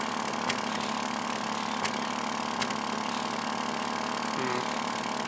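1994 Toyota Celica engine idling steadily at the tailpipe, a smooth idle at about 1100 rpm.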